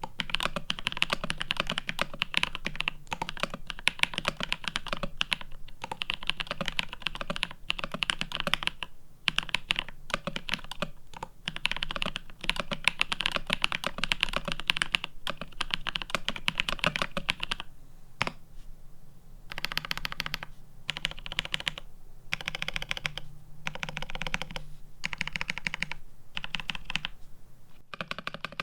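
Mechanical keyboard typing on Holy Boba tactile switches in a plateless, PCB-mount GRID650 with GMK ABS keycaps. Fast, continuous keystrokes pause briefly about eighteen seconds in, then come back in short separate bursts.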